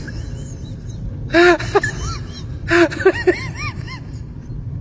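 Wordless vocal sounds from a person, short hums or moans that glide up and down in pitch, in two bursts, the first about a second in and the second around the middle, over a steady low background hum.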